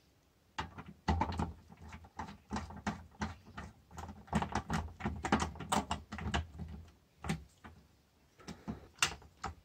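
A run of small clicks, taps and scrapes from a screwdriver working a terminal screw on an earth bar as a bare copper earth wire is fastened, then a pause and a few more clicks near the end.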